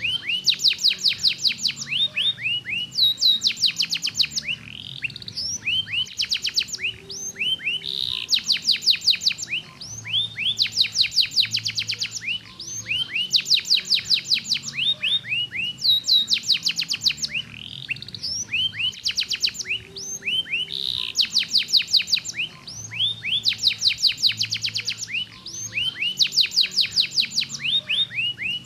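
Domestic canary singing: rapid trills of quick falling notes, phrase after phrase with short breaks between them.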